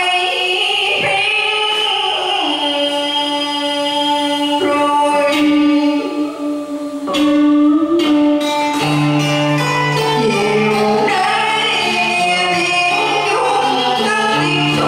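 A song: singing over instrumental accompaniment, with a low bass line coming in about nine seconds in.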